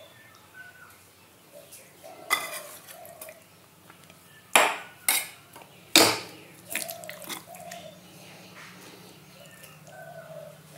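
Metal ladle clinking and scraping against a steel pan and a small stainless-steel bowl while curry is spooned out: several sharp clinks, the loudest three coming close together between about four and a half and six seconds in.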